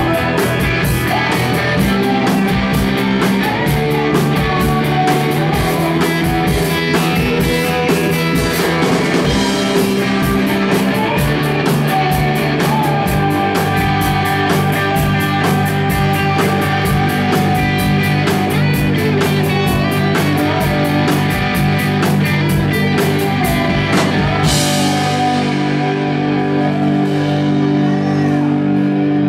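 A live rock band playing: electric guitar, drum kit and a woman singing. Near the end the drums and cymbals stop and held guitar chords ring on.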